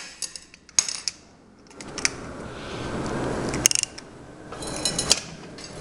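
Hand tools and metal engine parts clinking and clicking as they are handled, with a quick run of clicks near the end.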